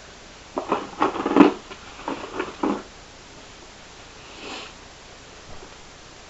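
Rustling and knocking of cosmetic packaging being handled, a cluster of short sounds in the first three seconds, loudest about a second and a half in.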